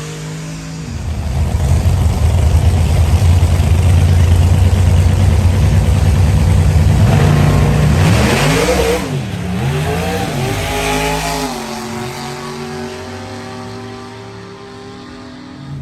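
Vehicle engine running loud and steady, then revved twice, the pitch rising and falling about eight to eleven seconds in, before settling lower and fading.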